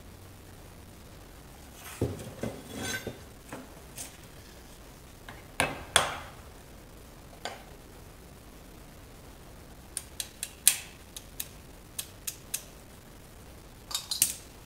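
Metal clinks and clanks of lug nuts and hand tools being handled on a heavy truck's front wheel hub. There is a clank about two seconds in, a louder ringing clank about six seconds in, a quick run of light clinks later, and a cluster of clinks near the end.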